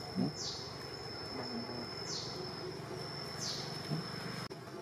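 Insect buzzing: a steady high whine with a downward-falling call repeated three times, about every one and a half seconds. A few short low sounds come over it, the loudest just after the start.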